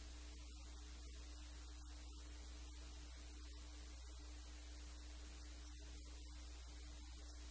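Steady low electrical hum with a faint even hiss, and no speech.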